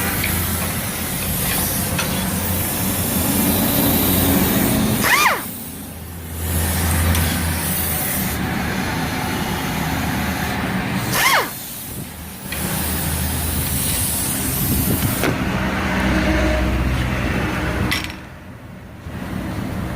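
Loud, steady mechanical noise with a low hum and hiss, dropping away briefly about every six seconds.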